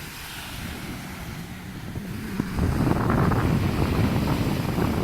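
Wind buffeting the microphone over the wash of sea surf, growing louder and rougher about two and a half seconds in.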